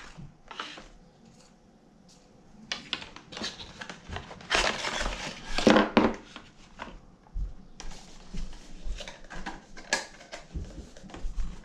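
Packaging and accessories from a drone box being handled and unpacked: irregular rustling, crinkling and light clattering that starts about two seconds in, loudest around five to six seconds in.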